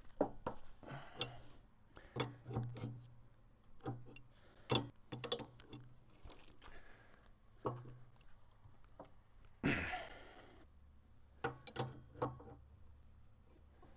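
Hand wrenches working a bolt on a flail mower: scattered metal clicks, taps and knocks at irregular intervals, with a rasping noise lasting about a second, about ten seconds in.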